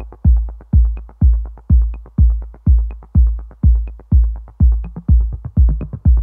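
Electronic intro music with a steady, heavy kick-drum beat, about two beats a second.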